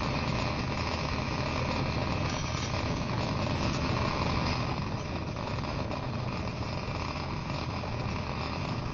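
Electric power tool running steadily, a low motor hum under an even grinding hiss.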